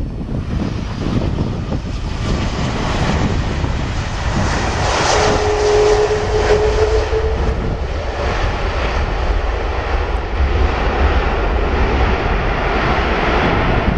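Airbus A330 jet engines in reverse thrust after touchdown on a wet runway: a loud rushing jet noise that swells about four seconds in, with a brief steady whine in the middle.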